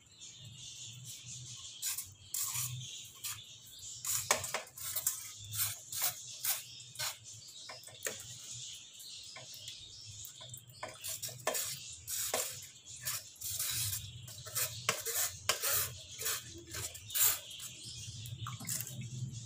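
Steel ladle clinking and scraping against a stainless steel strainer as it presses boiled tamarind and dried plum pulp through. The strokes are irregular and come thick and fast from about four seconds in.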